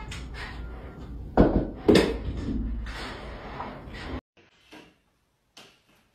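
A cat thumping against a window pane: two loud knocks about half a second apart over a steady low background rumble. The rumble cuts off suddenly about four seconds in, leaving a few faint taps.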